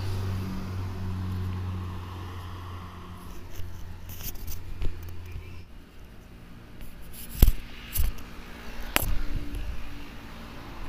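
Microphone handling noise from a cat pawing and biting at the mic cable: scraping and rubbing, with a few sharp knocks in the second half. A steady low hum stops about halfway through.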